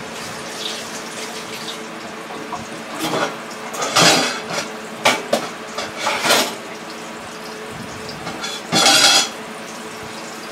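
Dishes and utensils clatter in several short bursts, about three, five, six and nine seconds in, with some running water. Underneath is a steady sizzle from battered porgy fillets frying in a skillet.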